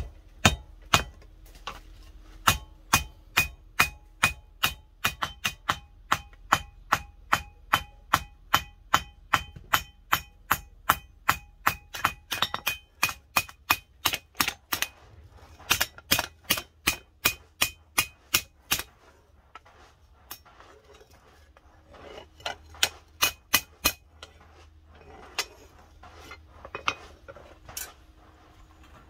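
Hand hammer striking a steel leaf spring on an anvil: a quick, steady run of ringing blows, about two to three a second, then a short pause and a few scattered blows near the end.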